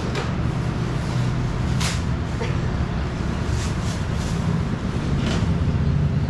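Steady low rumble of a vehicle engine running nearby, with a few faint brief hisses over it.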